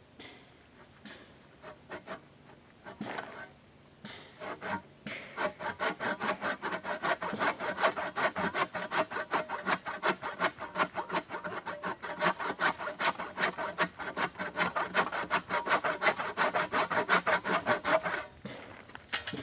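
Hand saw cutting through a log: a few hesitant starting strokes, then rapid, even back-and-forth strokes, about four a second, that stop shortly before the end.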